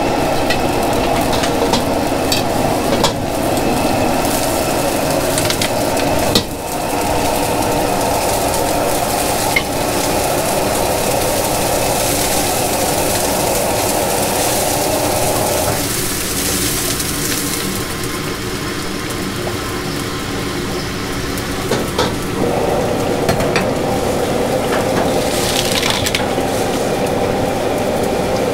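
Food sizzling and being stirred in a hot pan or wok, a dense steady hiss with scattered sharp clicks. The fuller part of the sizzle drops away for several seconds past the middle, then returns.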